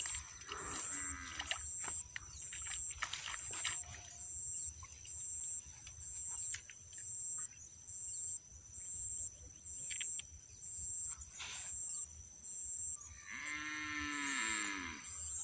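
Steady high chorus of insects pulsing about twice a second, with a few faint clicks. Near the end there is one drawn-out animal call, about two seconds long, falling slightly in pitch.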